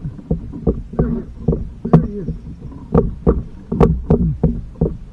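Water slapping against the hull of a small boat: irregular hollow knocks, several a second.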